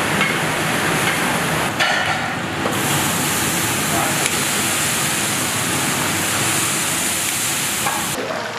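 Chilies and pickled vegetables sizzling in hot oil in a large wok as they are stirred with a metal ladle. Water is poured in partway through and hisses into steam. The sizzle is a loud, steady hiss.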